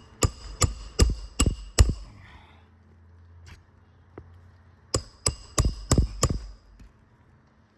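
Hammer strikes on a shingle roof, likely driving roofing nails during a shingle repair. Two runs of about five blows each, roughly two or three a second, each with a short metallic ring, and a pause of about three seconds between the runs.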